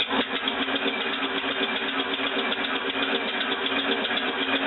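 Home-built compressed-air engine running on shop air at about 110 psi: a steady rush of air with rapid, evenly spaced exhaust puffs from its valves.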